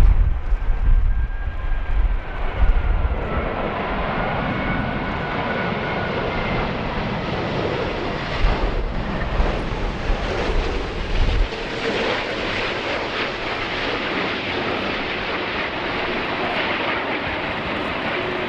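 Jet airliner passing overhead, its engines giving a steady rushing noise with whining tones that slowly shift in pitch. Strong wind buffets the microphone with a low rumble through about the first eleven seconds.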